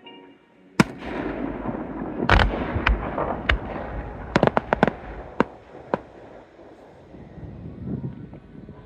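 Fireworks display: a sharp bang about a second in, then a rumbling, crackling wash with a quick string of sharp reports through the middle, thinning out near the end.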